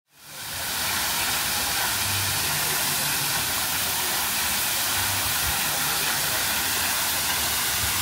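Steady rushing hiss of water pouring down a steep water slide's flume, fading in over the first second.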